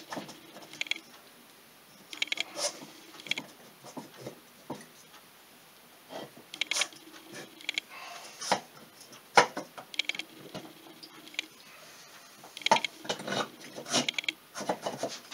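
Metal engine parts clicking and clinking in irregular bursts as the cylinder of a 1995 Polaris Sportsman 400 two-stroke engine is worked down over the oiled piston and rings by hand.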